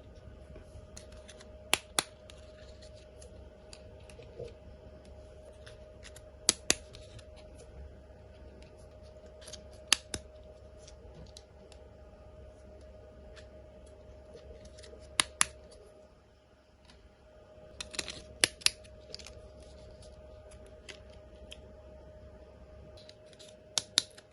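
Sharp clicks from small objects being handled, mostly in pairs a fraction of a second apart and spaced a few seconds apart, over a faint steady hum.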